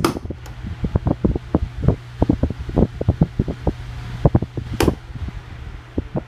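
Electric fan blowing air straight at the microphone: irregular buffeting gusts over a steady low motor hum. Two sharp clicks, one at the start and one about five seconds in.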